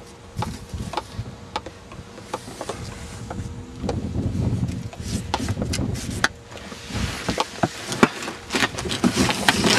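A cardboard box being opened and a person moving about inside it: scattered knocks, scrapes and rustles of cardboard, with a low rumble about four seconds in.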